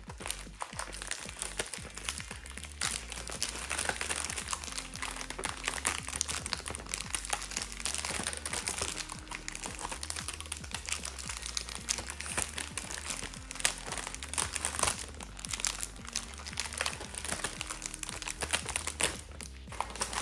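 Crinkly foil wrapping of a giant chocolate egg rustling and crackling irregularly as it is handled and pulled open, over background music.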